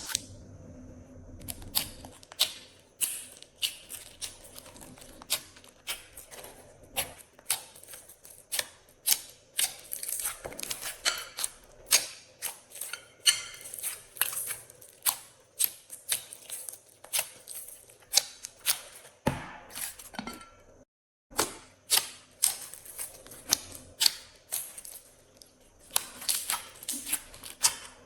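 Glossy slime being pressed, folded and stretched by hand, giving off a run of sharp, irregular clicking pops as trapped air bursts, about one to two a second, with a short break about three-quarters of the way through.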